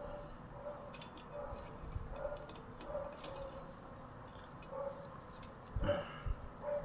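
Thin split-bamboo strips clicking and ticking softly as they are laid over and under each other, weaving the base of a bamboo fish basket, with one louder knock near the end.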